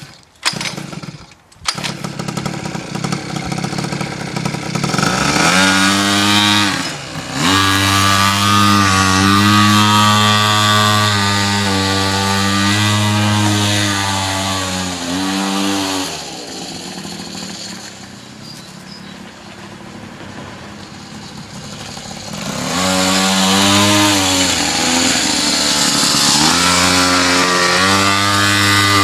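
Small 50cc two-stroke mini moto engine catching after a few sputtering pops, then revving hard and holding at high revs, easing back to a lower, quieter drone for several seconds before revving high again near the end. Its clutch has gone and slips as the engine revs.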